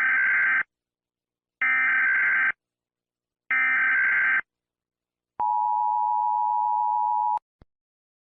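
Emergency Alert System broadcast tones: three identical short bursts of SAME header data, a buzzing digital warble just under a second each with about a second between them, then the steady two-tone EAS attention signal held for about two seconds before cutting off sharply, followed by a faint click.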